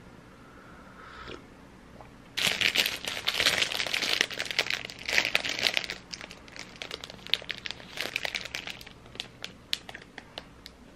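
Plastic packaging crinkling and crackling as it is handled, in a dense irregular run from about two seconds in, thinning to scattered crackles in the second half.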